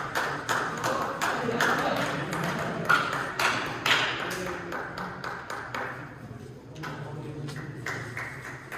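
Table tennis ball in a rally: sharp clicks a few times a second as it is struck and bounces. The clicks thin out briefly about six seconds in and pick up again near the end, with low voices underneath.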